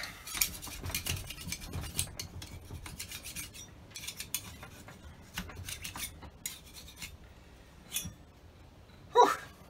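Gasket scraper scraping old brown factory-original gasket material off a Holley carburettor's metal face, in many short, rapid strokes that thin out after about six seconds. The gasket is stuck on hard and takes a lot of force to remove.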